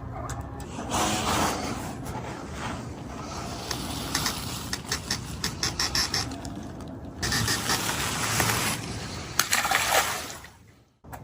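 Water splashing with scraping handling noises, and a quick run of clicks in the middle; the sound fades out near the end.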